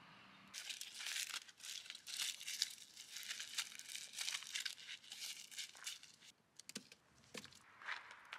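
Hands crumpling and tearing crinkly fire-starting material for a campfire, in quick rustling bursts that start about half a second in and thin out to a few separate crinkles after about six seconds.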